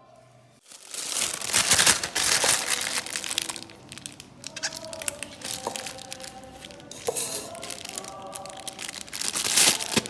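Plastic piping bag crinkling and rustling as it is handled and lifted out of a cup, starting about a second in, over soft background music.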